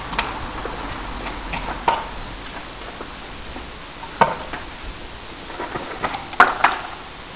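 Steady background hiss with a few scattered sharp clicks and knocks; the loudest pair comes about six and a half seconds in.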